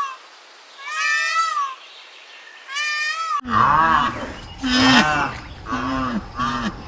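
Goat bleating: three short, high calls with a quavering pitch. About three and a half seconds in, the sound cuts abruptly to a different recording of louder, lower animal calls whose pitch bends.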